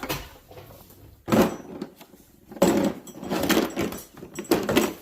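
Metal wrenches and tools clattering and clanking in a toolbox drawer: a knock about a second in, a longer run of rattling in the middle and another clank near the end.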